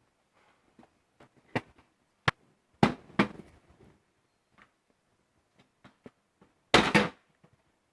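Hard plastic parts of a fibre distribution box being handled: a few sharp clicks and knocks, two close together about three seconds in, and a louder clatter about seven seconds in.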